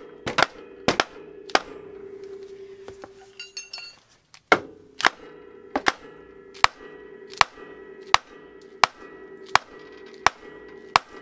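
Repeated hammer blows on the steel front suspension of a 2006 Polaris Sportsman 700, about one and a half strikes a second, each with a short metallic ring, knocking a seized ball joint loose from the A-arm. There is a brief lull about two to four seconds in.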